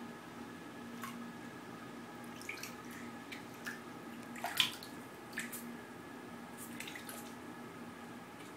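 Light splashes and drips of bathwater as a baby moves her hands in a shallow tub: a scattering of short splashes, the loudest about four and a half seconds in, over a faint steady hum.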